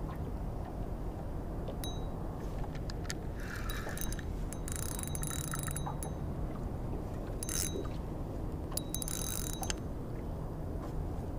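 Spinning reel buzzing in four short spells, each one to two seconds long, as a hooked channel catfish is fought on the line, over a low steady rumble.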